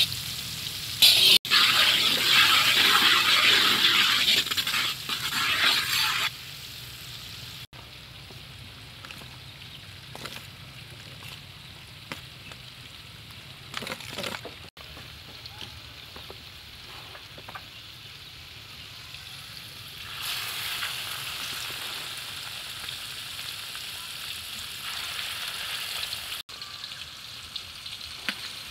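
Hot oil sizzling loudly around a dollop of yellow batter frying in a pan, stopping about six seconds in. The rest is much quieter, with a few short knocks partway through and a softer hiss for a few seconds near the end.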